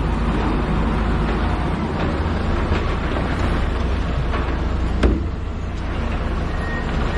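Heavy construction machine's engine running steadily with a low rumble, with one sharp knock about five seconds in.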